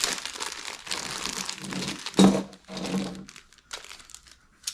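Packaging crinkling and rustling as it is handled and pulled apart, with one louder knock a little over two seconds in.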